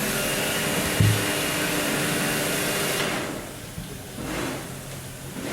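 A small motor runs with a steady whir and hiss for about three seconds, then dies away. There is a short low thump about a second in.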